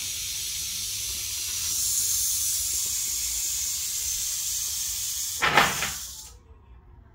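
Mojave rattlesnake rattling its tail in a steady, high-pitched buzz that cuts off suddenly about six seconds in. A brief, louder noise comes just before the buzz stops.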